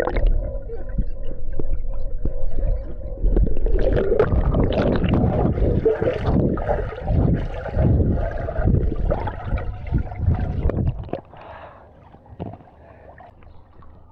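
Swimming-pool water sloshing and splashing close to the microphone in irregular surges, with a low rumble, dying down about eleven seconds in.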